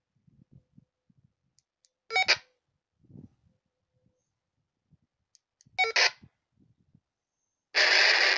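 Baofeng UV-5R handheld radio giving two short beeps from its speaker, about two and six seconds in, as its keypad is pressed, with faint taps of the buttons in between. Near the end a loud, steady rushing sound opens from the radio's speaker.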